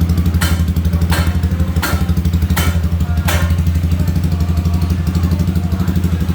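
Yamaha Sniper 155 single-cylinder engine running steadily through an aftermarket conical-type exhaust, a deep even pulsing exhaust note. Short sharp hits sound about every 0.7 s through the first half.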